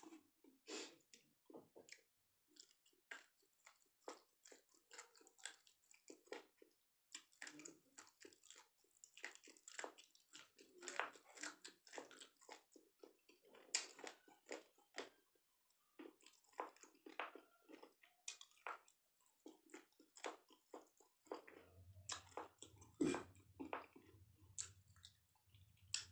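Faint, close mouth sounds of a man eating rice by hand: a dense run of wet chewing clicks and smacks, mixed with soft sounds of fingers working the rice on the plate. Near the end a low hum comes in, with one louder click.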